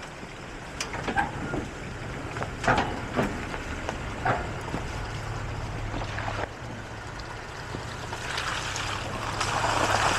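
Toyota Tacoma pickup engine running at low speed as the truck crawls over a steel grate, with several sharp clanks and knocks from the tyres and chassis in the first half. Near the end a louder rushing noise builds over it.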